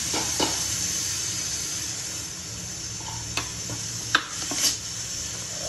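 A pot of greens boiling hard in water with a steady hiss, while a metal ladle stirs and clinks against the aluminium pot a few times.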